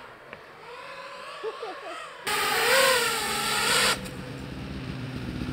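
FPV quadcopter motors whining, their pitch sweeping up and down, then a loud rush of propeller noise with a wavering whine for about a second and a half that cuts off abruptly. Near the end a low engine sound builds.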